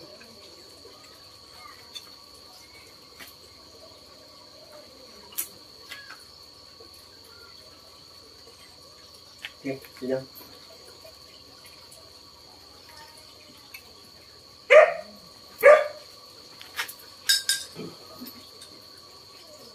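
Steady high-pitched chirring of night insects, with two loud short cries close together about fifteen seconds in and a few small knocks and clicks.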